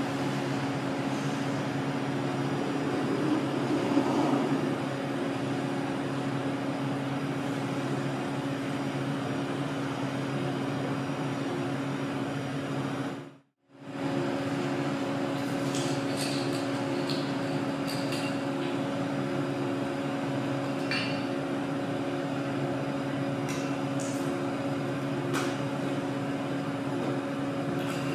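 Steady machine hum made of several fixed tones, cutting out for a moment about halfway through, with a few light clicks and taps in the second half.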